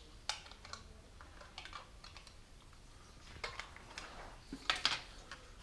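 Scattered light clicks and taps as PC parts are handled: the hard drive and its drive tray being picked up and fitted. The clicks come loosest at first, with a quicker run of louder ones in the second half.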